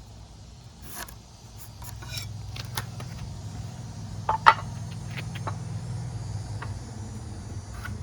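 Light clicks and taps of hand tools and 2x4 lumber being handled while wall framing is marked out, with one sharper click about four and a half seconds in, over a low steady hum.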